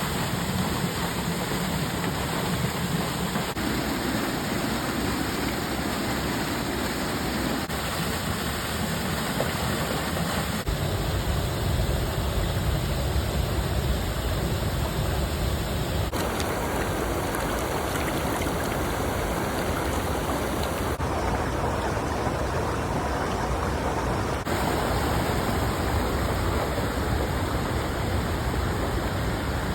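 Rushing water, a steady dense hiss and rumble of flowing water that changes abruptly in tone four times.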